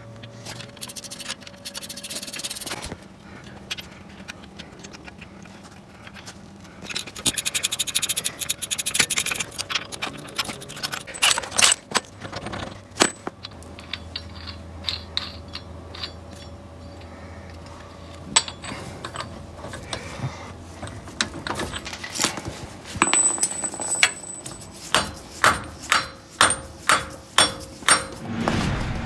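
Hand tools working on metal at a Jeep front wheel hub bearing: scattered metallic clinks, knocks and scraping, with a run of sharp clicks about two a second near the end, as the hub bolts are worked out.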